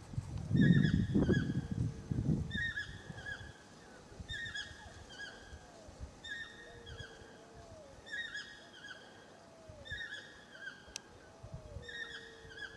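An animal's two-note call, repeated evenly about every 1.3 seconds, with fainter lower curving whistles from another caller between. A low rumbling noise in the first couple of seconds is the loudest sound.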